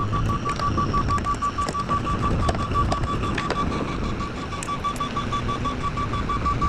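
Lull telehandler's back-up alarm beeping in a fast, steady pulse over the low rumble of its running engine.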